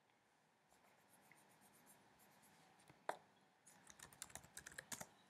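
Near silence with a faint click about three seconds in, then a quick run of faint clicks and taps near the end.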